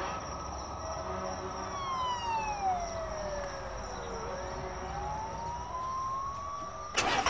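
A slow siren wail: one tone slides down for about three seconds, then climbs back up, over a low steady rumble. A sharp knock comes near the end.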